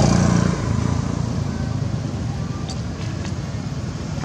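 A motor vehicle engine running with a low pulsing rumble. It is loudest at the start, drops back about half a second in, then runs on steadily.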